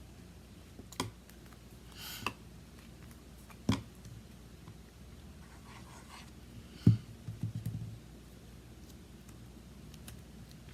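A few scattered light taps and clicks of paper and cardstock being handled on a tabletop. The loudest is a knock about seven seconds in, followed by a brief rustle.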